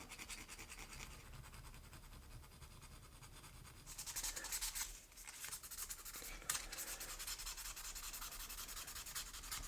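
Faint, scratchy hand-abrading of a metal diecast car body, starting about four seconds in and settling into quick, even back-and-forth strokes, as deep factory file marks in the casting are worked down.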